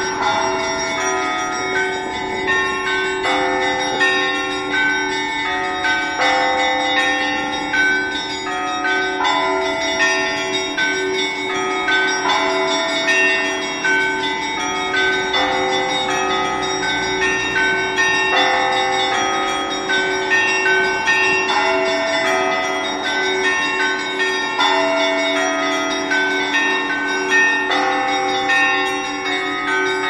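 Russian Orthodox church bell ringing (zvon) from an open belfry. Several bells of different pitches are struck in a repeating pattern over a fast, steady pulse of lower-pitched chimes.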